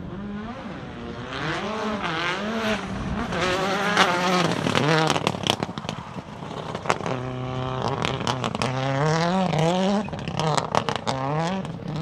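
Toyota Corolla WRC rally car's turbocharged four-cylinder engine accelerating hard through the gears, the engine note rising and dropping again and again with each shift. Sharp cracks and pops from the anti-lag system and exhaust come on and off the throttle, thickest about a third of the way in and near the end.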